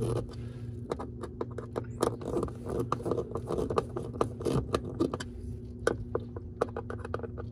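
Hand screwdriver turning and scraping in the screw heads as the wood screws of a plastic CableClam cable entry are cranked down tight, compressing its rubber seal washer: a run of irregular short clicks and scrapes.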